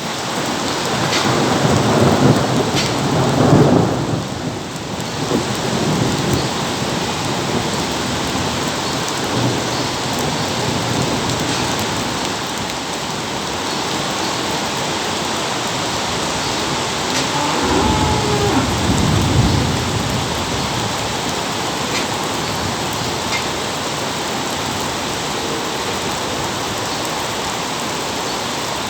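Very heavy rain pouring down steadily, with rolls of thunder rumbling about two seconds in and again around eighteen seconds in.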